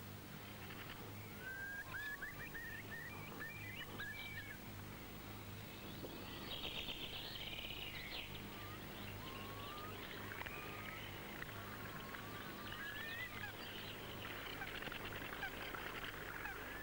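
Birds calling: scattered short rising chirps, with a quick rapid trill about seven seconds in, over a steady low electrical hum.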